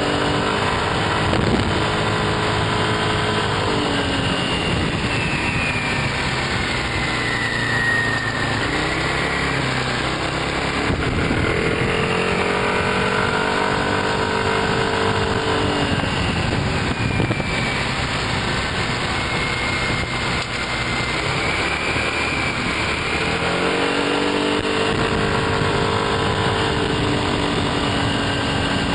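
Motor scooter engine running while the scooter rides along, its pitch dropping and climbing several times as the speed changes, over a steady rush of noise.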